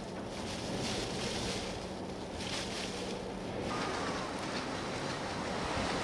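Strong blizzard wind blowing in gusts and buffeting the microphone. A faint steady hum underneath stops about three and a half seconds in.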